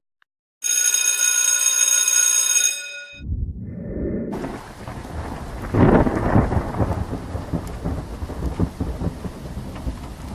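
Thunderstorm sound effect: steady rain with a loud thunderclap about six seconds in, rumbling low underneath. It is preceded by a bright ringing tone lasting about two seconds, starting half a second in.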